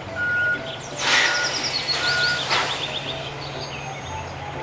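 Car-carrier semi-truck moving with a steady low engine hum under a repeating short high beep. Two bursts of hiss come about a second in and again a little after halfway. High chirps sit over it.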